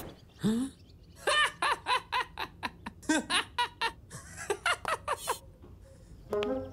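A cartoon boy laughing in a string of short, separate bursts, after a brief rising vocal sound about half a second in.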